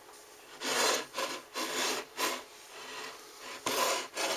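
Rubbing and scraping handling noise: a plug-in power meter, its cord and a glass bottle lamp being moved and slid on a wooden desktop, in several short scrapes.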